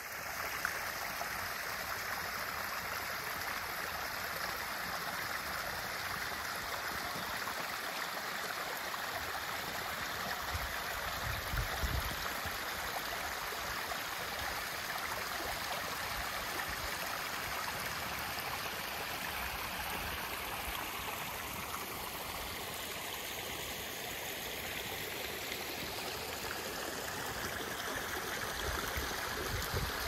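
Small rocky stream running and gurgling over stones, a steady rush of water, with a brief low rumble about a third of the way in.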